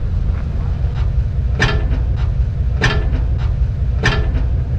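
Jeep Wrangler JK crawling slowly up granite rock: a steady low engine rumble, with three sharp, ringing clacks evenly spaced about a second apart.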